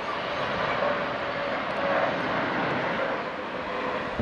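The jet engines of a Boeing 777-300ER, its GE90 turbofans, as the airliner passes low on landing approach. A steady jet roar with a faint steady whine, swelling to its loudest about halfway through.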